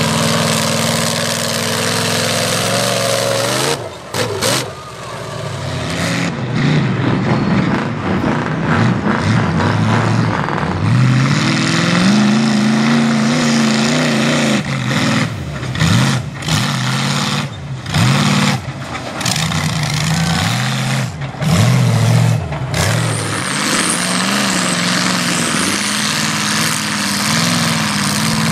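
Mega truck's engine revving hard through a mud pit, its pitch rising and falling with the throttle, with several sudden throttle lifts in the middle part. Mud and water spray off the big tyres.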